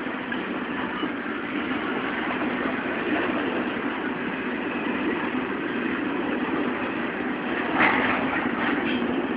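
Double-stack intermodal freight train's well cars rolling past on the rails, a steady noise of wheels on track, with a brief louder burst about eight seconds in.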